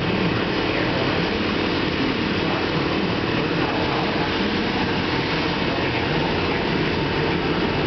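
A steady, unchanging rumble and hiss of machine noise.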